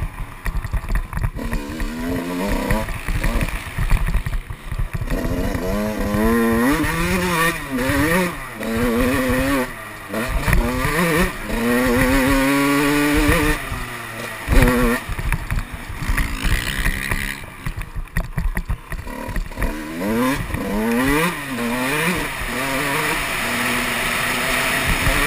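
Motocross bike engine revving hard and easing off again and again, its pitch climbing through each burst of throttle and dropping away between them, with wind buffeting the microphone.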